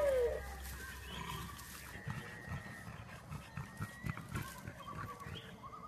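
A dog's short yelp that rises and falls in pitch right at the start, followed by quieter low crackling and rustling.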